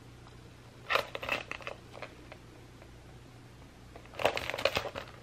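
Handling noise from a Louis Vuitton Damier Ebene Mini Pochette, a small coated-canvas pouch with a gold-tone chain, as it is turned over in the hands. Two short bursts of rustling and light clicks come about a second in and again near the end, over a faint low hum.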